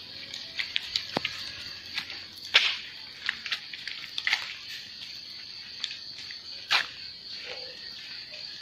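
Steady high-pitched chirring of night insects, with scattered sharp clicks and scuffs on top, the loudest about two and a half and nearly seven seconds in.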